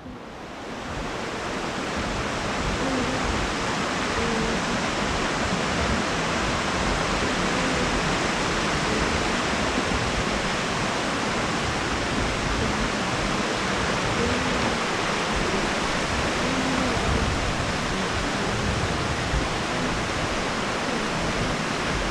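Steady rushing of a rocky mountain creek pouring over small cascades and boulders. It fades in over the first second, then holds even.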